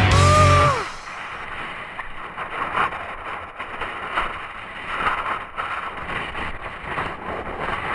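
A rock music track ends with a held, falling guitar note about a second in. After that there is a muffled, even rush of wind on an action camera's microphone, with faint scattered knocks.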